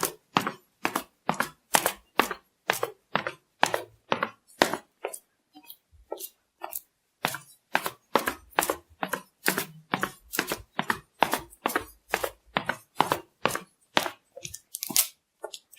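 A steady series of sharp, noisy strokes, about two a second, softer for a moment around six seconds in, stopping suddenly near the end.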